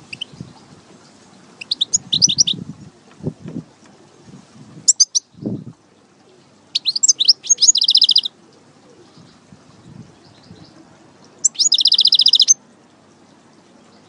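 European goldfinch singing: four short phrases of quick high twittering notes, about two, five, seven and twelve seconds in, the last two ending in a fast buzzy trill. A few low thuds are heard in the first half.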